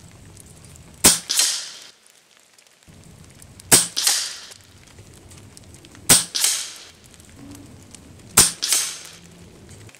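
RTI Arms Priest 2 PCP air rifle firing four shots about two and a half seconds apart. Each shot is a sharp crack with a second, longer burst trailing just after it.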